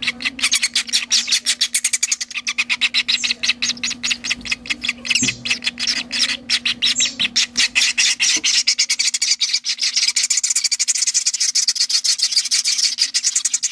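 Baby chimney swifts begging to be fed: a fast, raspy, unbroken chatter of rapid clicks. A faint steady low hum runs beneath it.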